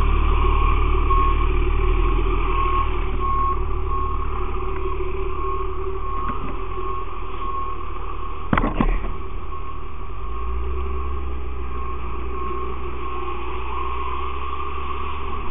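Fire engine's engine running steadily, with an electronic beep repeating a little more than once a second and a single sharp knock about halfway through.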